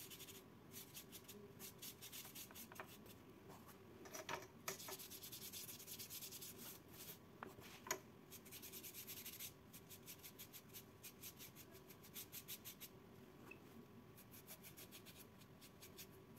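Faint, quick strokes of a small brush rubbing Distress ink onto card, coming in runs with short pauses and a couple of light taps.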